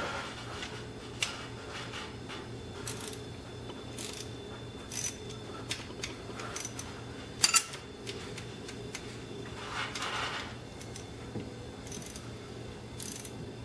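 Scattered light metallic clicks and clinks of small hand tools and bolts being handled on the open cylinder head of a 5.9 Cummins diesel, over a steady background hum.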